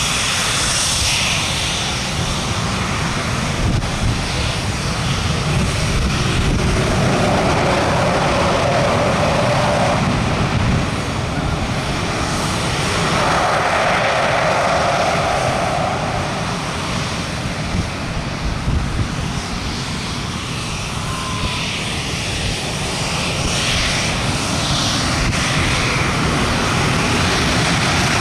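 English Electric Lightning's twin Rolls-Royce Avon turbojets running on the ground, a loud steady jet noise that swells twice in its middle range.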